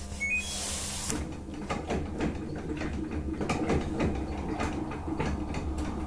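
LG inverter direct-drive top-load washing machine starting a spin cycle: a short button beep near the start, then from about a second in the motor turns the tub with a low hum and a run of irregular clicks and knocks.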